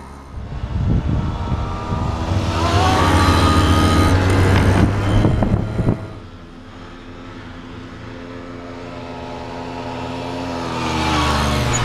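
Small motorcycle engines running and revving: the engine note climbs in pitch as one accelerates and stays loud for several seconds, then drops suddenly to a quieter steady engine note that grows louder again near the end.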